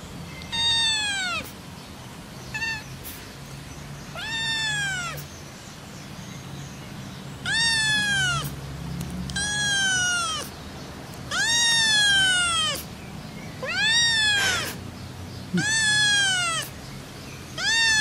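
A kitten meowing repeatedly, about nine high-pitched meows that each rise and fall in pitch, while fleas are picked from its fur.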